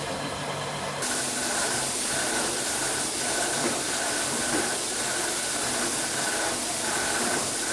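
Steam hissing from a 1955 Reșița-built narrow-gauge steam locomotive: a steady hiss that sets in about a second in.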